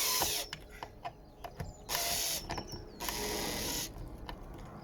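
Hand tools working a rounded-off screw head in timber: three short rasping or ratcheting bursts, each under a second, with small clicks between them.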